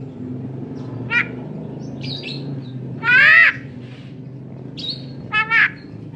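Javan myna giving a series of short, harsh calls: single calls about one and two seconds in, a longer, louder call about three seconds in, and a quick pair near the end, over a steady low hum.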